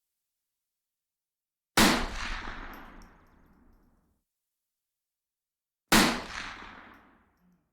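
Two rifle shots about four seconds apart, each a sharp crack followed by a long echoing tail that dies away over a second or two.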